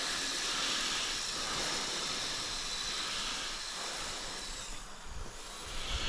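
Kyosho Blizzard RC snowcat's electric motor and tracks running as it drives over snow: a steady whirring hiss that grows fainter as the machine moves away, from about four and a half seconds in.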